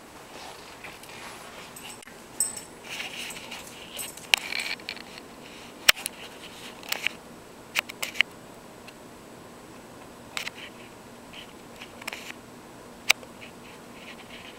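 Dogs rushing out through an opened patio door: a scatter of sharp clicks and short scuffling noises, the loudest click about six seconds in.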